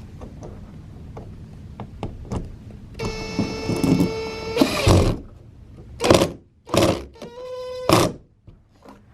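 Cordless drill running twice to drive in bolts: a steady motor whine lasting about a second and a half, about three seconds in, then a shorter whine near the end. Loud knocks come between and after the runs.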